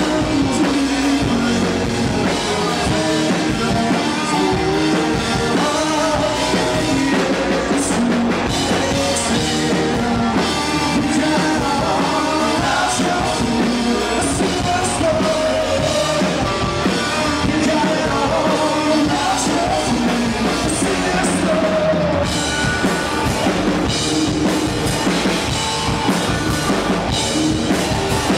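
Rock band playing live: electric guitars, electric bass and drum kit, with a lead vocal sung over them.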